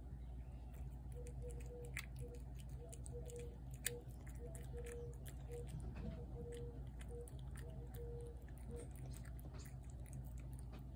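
Feral tabby cat eating wet food from a plate: a steady run of small, irregular chewing clicks, with one sharper click a little under four seconds in, over a steady low hum.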